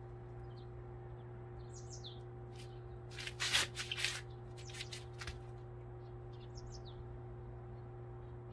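Small birds chirping in short, high, scattered calls, over a steady low hum. About three seconds in comes a brief noisy rush lasting about a second, the loudest sound here.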